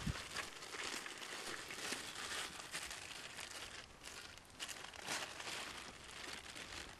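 Small wood fire crackling inside a folding steel Firebox stove: a steady run of irregular small pops and hiss. A dull low bump right at the start.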